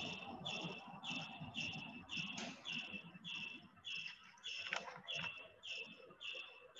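Faint, steady chirping of a cricket, a regular chirp about twice a second.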